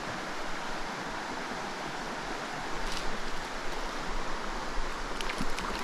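Shallow rocky trout stream running steadily over a riffle, with a few faint ticks about midway and near the end.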